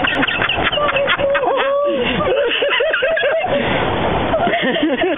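Women's voices shrieking and laughing in quick, high-pitched cackling bursts.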